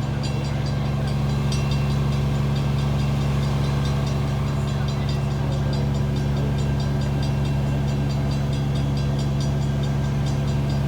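Large diesel engine idling, a steady low drone that does not change.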